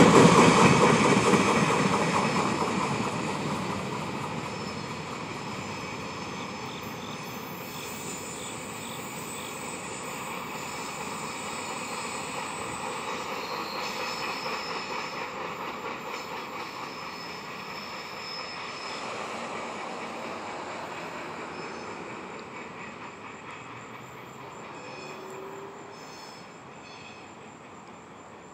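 Freight train rolling away: the loud rumble of its wheels on the rails dies down over the first few seconds into a steady distant rumble with faint high wheel squeals. Crickets chirp near the end.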